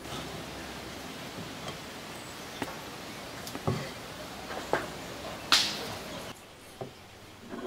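Wooden spoon scraping and knocking against a clay bowl and a wooden string-hopper press cup while soft dough is scooped and packed in. A few short knocks and scrapes, the loudest a hissy scrape about five and a half seconds in.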